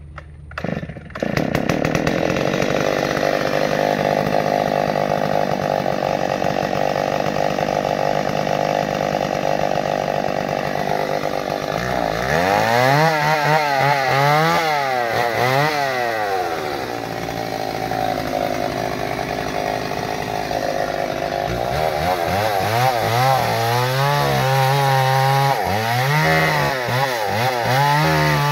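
Two-stroke chainsaw running at a steady pitch. From about halfway its engine note rises and falls over and over as it is throttled. Near the end it is cutting into a tree trunk.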